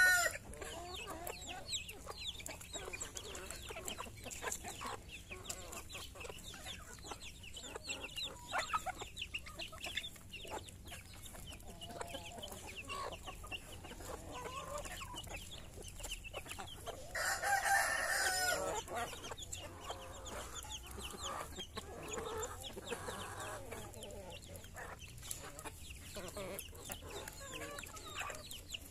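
A flock of hens clucking softly while they peck grain off a stone, with many short taps from their beaks. About 17 seconds in, one bird gives a louder call lasting about a second.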